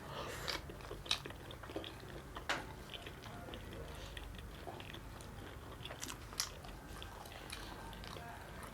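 Close-miked chewing of butter chicken with butter naan, with scattered small wet clicks and smacks from the mouth.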